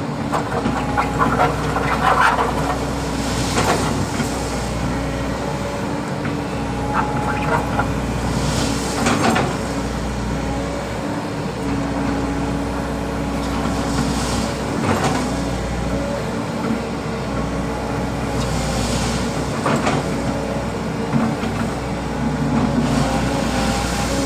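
Volvo EC200D excavator's diesel engine running steadily, with short clanks and scrapes every few seconds as the machine works stone.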